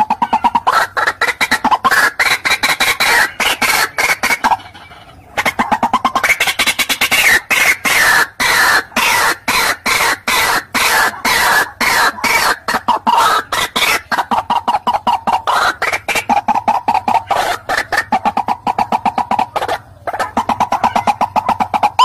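White-breasted waterhen (ruak-ruak) calling: a fast, harsh chattering run of clucking notes, about five a second, with a short break about five seconds in. This is the waterhen's call as used for a hunter's lure to draw wild birds in.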